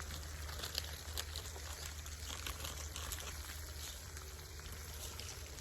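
Faint sizzling with scattered small crackles from burger patties cooking over a campfire, over a steady low rumble.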